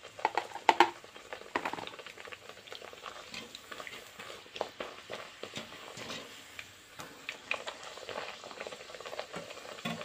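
A puri deep-frying in hot oil in a kadhai: the oil sizzles and crackles with many small pops, with a few louder knocks in the first second.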